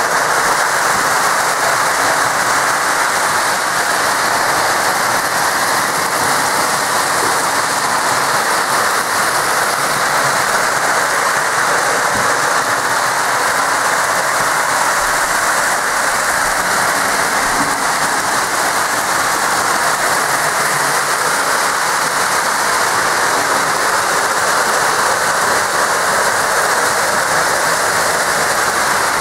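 Three Lionel O-gauge model trains and a Lionel trolley running together on the layout's track, making a steady, even noise with no clear beat.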